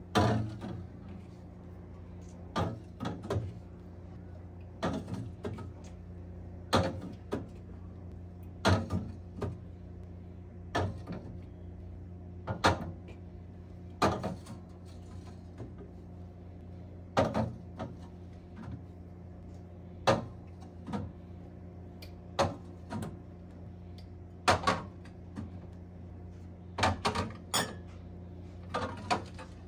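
Aluminium drink cans and a glass bottle set down one at a time on a glass refrigerator shelf: a sharp clink or knock every second or two, sometimes two close together. A steady low hum runs underneath.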